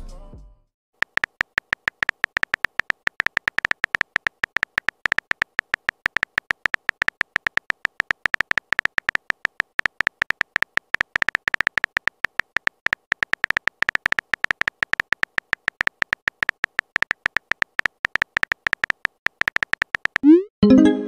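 Simulated phone-keyboard typing sounds from a texting-story app: a fast, irregular run of short electronic tick-beeps, several a second, one per typed letter. Near the end a short rising swoosh and a louder tone cut in.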